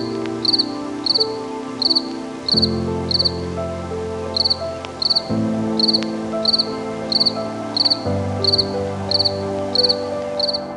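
An insect chirping in short, high-pitched pulsed chirps, about two a second, with a brief gap a little over a third of the way in. Soft sustained music chords play underneath, changing every few seconds.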